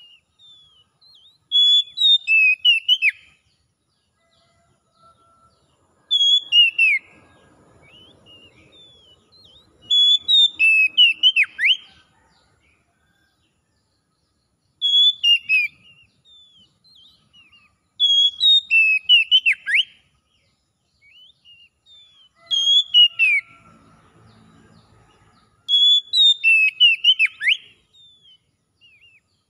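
Oriental magpie-robin singing: about seven loud bursts of clear whistled phrases with sharp downward-sweeping notes, one every four seconds or so, with softer chirps between them.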